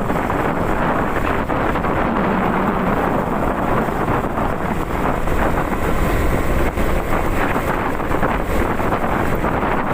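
Steady wind rush on the microphone while a Honda CB150R motorcycle is ridden, with its single-cylinder engine running underneath.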